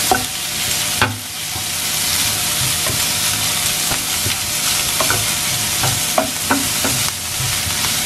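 Corned beef frying with sautéed garlic and onion in a nonstick pan, a steady sizzle, while a spatula stirs and scrapes through it. A few light knocks come from the spatula striking the pan at uneven intervals.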